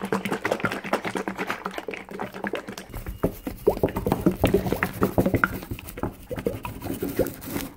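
Plastic slime-kit jar holding water and powder shaken hard and fast: the liquid sloshing inside and the jar knocking in a rapid, irregular patter. Heavier low thumps join in about three seconds in.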